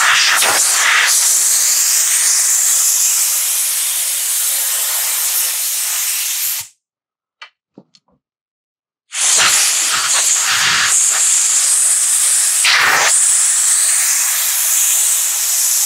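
Compressed air hissing from a blow gun as it blasts dirt out of a Stihl chainsaw guide bar's groove and oil holes: one long blast, a pause of a couple of seconds about halfway, then a second long blast.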